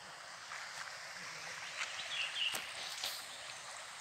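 Small shallow stream running over stones: a steady rushing hiss, with a few brief high chirps a little after two seconds in.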